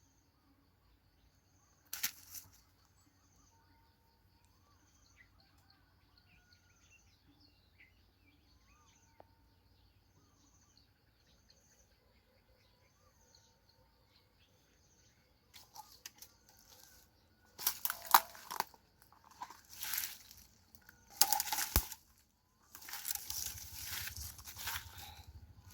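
Faint chirps repeating about once a second, then loud irregular bursts of rustling and crackling, like dry leaves and twigs being crushed or handled, from about two-thirds of the way in.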